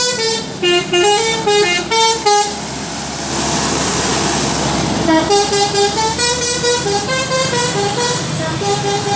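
Bus 'telolet' musical horn playing a quick tune of short stepped notes, then a hiss of noise, then the horn tune starting up again about five seconds in.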